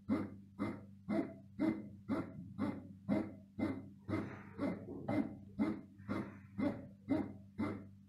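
Kiwi KMC 6955 bread maker kneading dough: a steady motor hum with a regular knock about twice a second as the kneading paddle swings the dough ball round the pan.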